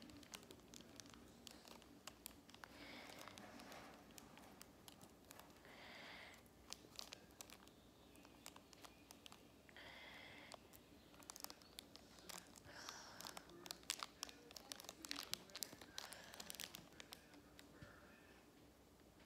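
Faint crinkling and tearing of a plastic blind-bag wrapper being worked open by hand, with irregular sharp crackles throughout.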